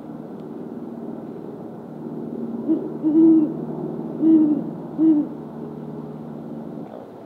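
Male great horned owl giving its territorial hoot: four low hoots in quick succession, a short note, a longer one, then two shorter ones. The hoots sit over a steady low drone.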